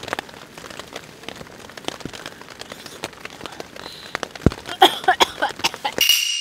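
Steady rain pattering on tent fabric, dotted with many small drop clicks. Near the end come louder, wavering sounds, then a high ringing tone that cuts off suddenly.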